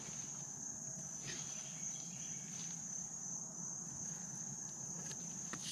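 Evening insect chorus: a steady, high-pitched drone, with a couple of faint knocks.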